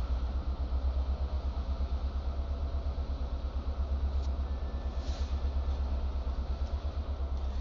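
Norfolk Southern diesel locomotives moving slowly at the head of a freight train: a low engine rumble with a fast, even throb.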